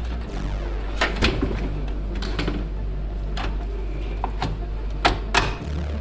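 Scattered clicks and knocks of metal and plastic as an Inno3D GTX 1650 Super graphics card is handled and pressed into a PC case's PCIe slot, the two loudest a little after five seconds in. A steady low hum runs underneath.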